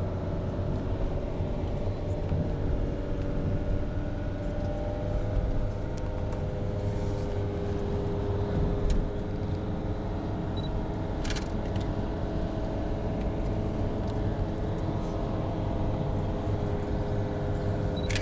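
Car interior: engine hum and low road rumble of a car driving slowly, steady throughout, with a short click about eleven seconds in.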